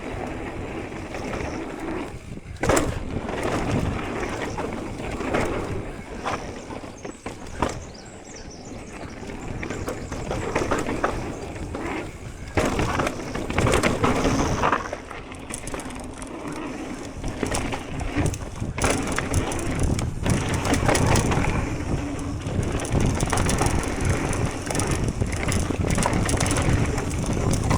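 Electric mountain bike riding down a dirt trail: tyres rolling and crunching over the ground, with the bike rattling and clacking over bumps and roots.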